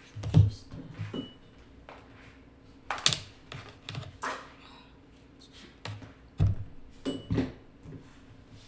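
Tarot cards and a deck being handled and set down on a tabletop: a handful of irregular taps and thumps with short quiet gaps between them.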